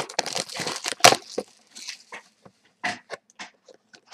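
A sealed hockey card box being torn open: cardboard and wrapping crackling and tearing for about a second and a half, then scattered clicks and rustles as it is handled.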